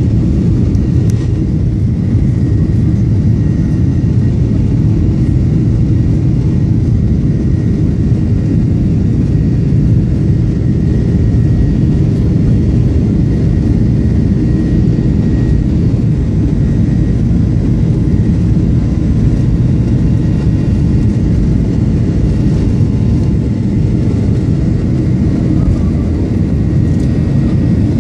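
Boeing 737-800's CFM56-7B turbofan engines at takeoff thrust, heard from inside the cabin during the takeoff roll, together with the rumble of the wheels on the runway. A loud, steady rumble with a faint high whine over it.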